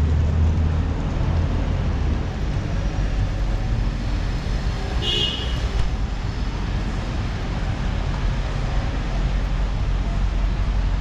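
Street traffic: a steady background of passing vehicles with low engine rumble, heaviest in the first couple of seconds. About halfway through comes one brief high-pitched tone.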